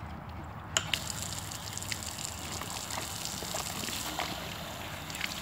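German Shepherd dog with her head in a bucket of water, lapping and splashing, with a few sharp clicks about a second in.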